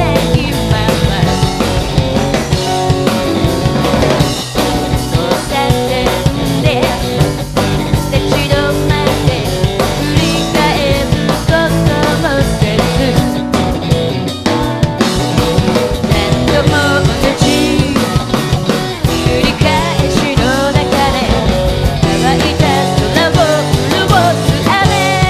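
Live rock band playing a song, with a drum kit driving the beat and the low end dropping out briefly about halfway through.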